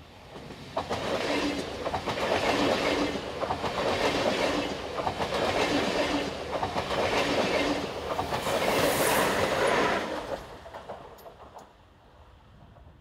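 DB Intercity 2 double-deck electric passenger train passing at speed close by. Its wheels rumble on the rails with a rhythmic clickety-clack as each coach's bogies go by. The sound swells about a second in and dies away after about ten seconds.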